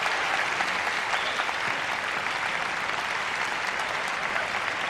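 Live audience applauding steadily: many hands clapping at once.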